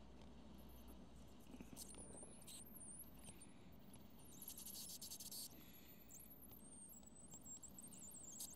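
Near silence, with faint high-pitched squeaks and chirps and a brief faint hiss about four to five seconds in.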